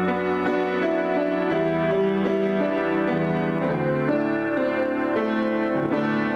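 Grand piano played solo, an improvisation of held chords that change every second or so under a melody.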